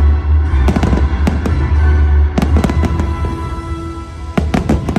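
Aerial fireworks bursting in quick clusters of sharp bangs and crackles, about a second in, around two and a half seconds in and again near the end, over loud music.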